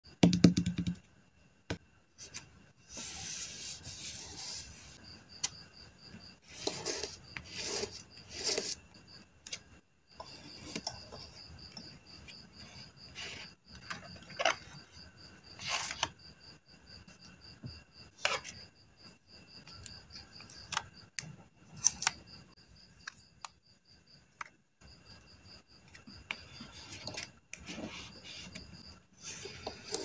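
Paper handling for a journal spread: sheets and cut-out paper pieces rustling and rubbing on a kraft-paper page, with scattered light clicks and taps from tweezers and a clear plastic storage box. A loud low thump sounds right at the start.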